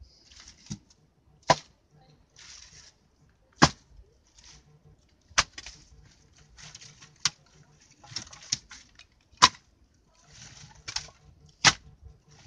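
Split firewood pieces clacking against each other as they are stacked one at a time inside a tractor tire: a sharp wooden knock about every two seconds, with lighter knocks and rustling in between.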